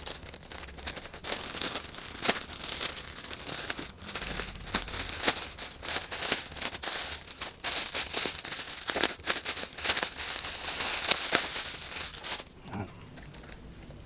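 Plastic packaging crinkling and crackling as a poly courier mailer and the plastic wrap inside it are torn open and handled, with many sharp crackles; it stops near the end.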